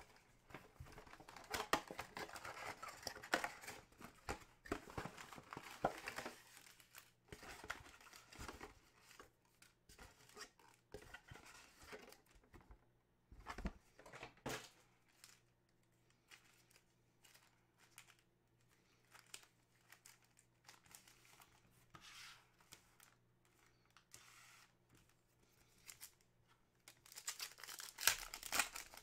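A 2020 Panini Prizm football mega box and its foil card packs being opened by hand: crinkling and tearing, densest in the first several seconds and again near the end, with scattered small rustles and taps between.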